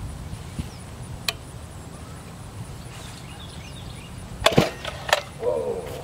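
A few sharp clicks and knocks from the 105cc chainsaw being handled as it is readied for starting, then a brief rasping sound near the end. The engine is not yet running.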